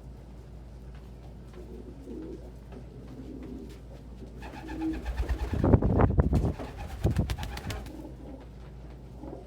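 Domestic pigeons cooing softly, with a loud flurry of wing flapping and rustling in the middle lasting about three seconds.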